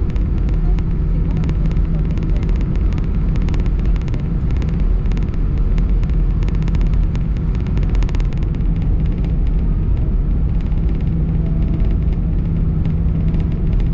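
Steady low rumble inside the cabin of an Airbus A319 taxiing with its jet engines at idle. Many faint clicks and rattles sound over it through roughly the first eight seconds.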